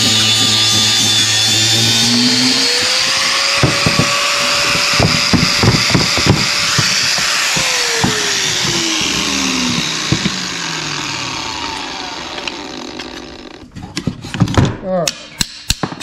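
Angle grinder cutting through the steel bracket of an adjustable accelerator pedal, its whine holding steady and then falling away as the disc spins down after about eight seconds. Near the end come several sharp metal clinks as parts are handled on a steel cart.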